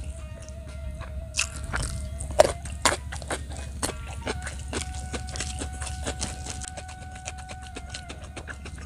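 Close-up eating sounds: chewing and short sharp clicks and crunches of a mouth and fingers working rice and raw young jengkol, over soft background music with long held notes and a low steady rumble.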